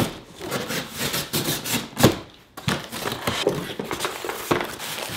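Cardboard box being opened and handled: flaps and panels scraping and rubbing, with one sharp knock about two seconds in.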